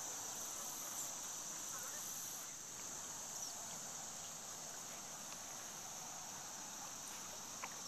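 Steady, high-pitched chorus of insects shrilling from the lakeshore vegetation, with a few faint clicks.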